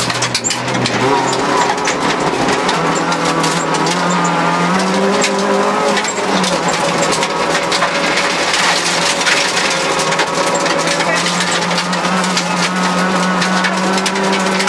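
Rally car engine heard from inside the cabin, revs rising and falling as the driver shifts and lifts, with many sharp clicks of gravel and stones striking the car from the loose dirt road.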